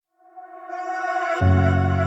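Intro music: ambient tones fading in, joined by a deep sustained bass note about one and a half seconds in.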